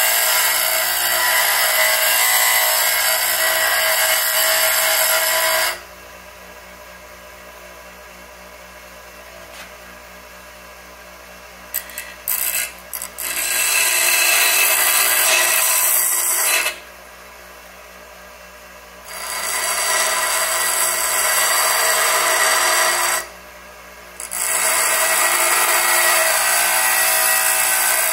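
Bench grinder wheel grinding excess weld bead off a welded shift lever, dressing the weld down: several long spells of hard grinding, with pauses where the wheel spins free at a much quieter steady hum and a few brief touches about twelve seconds in.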